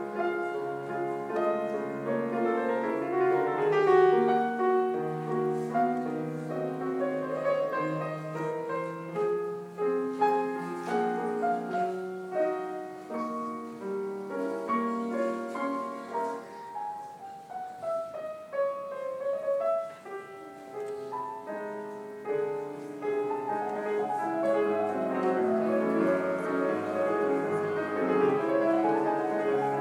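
Solo piano playing a dense run of chords and melody, which thins out to a quieter passage about two-thirds of the way through before the full texture returns.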